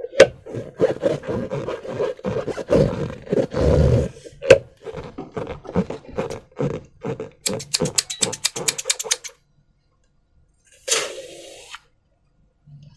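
Slime being squeezed and worked by hand inside transparent rubber balloons: irregular wet squelches and rubbery creaks. About two-thirds through comes a quick run of crackling clicks, then a pause and one short hiss-like rush.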